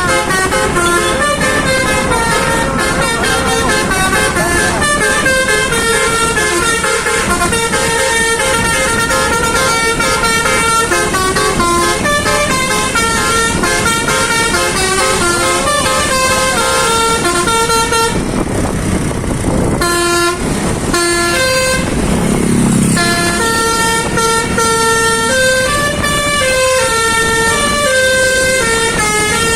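A Dedy Jaya bus's basuri 'telolet' musical air horn playing a tune: a run of loud, steady horn notes stepping up and down in pitch, with a short break about two-thirds of the way through.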